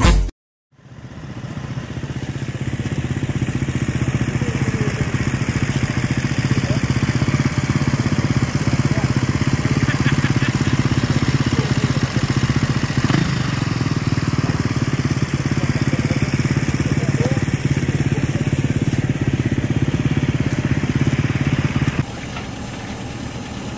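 A motor runs with a steady, loud hum that builds up over the first few seconds and holds evenly. Near the end it cuts abruptly to a quieter engine idling.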